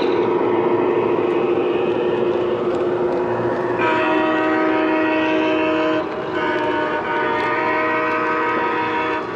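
Lionel Legacy O-scale Amtrak Acela train set sounding its electronic horn twice, a blast of about two seconds starting about four seconds in, then a longer one of about three seconds. Throughout, there is the steady rumble of the train rolling past on the track.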